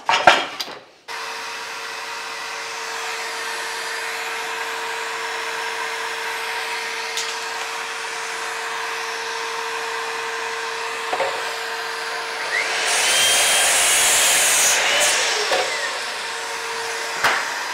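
A dust-extraction vacuum runs steadily with a constant hum. About 13 seconds in, a Bosch sliding mitre saw whines up, cuts through a 2x4 and winds down over about two seconds. There is a loud knock at the very start and a few lighter knocks of timber being handled.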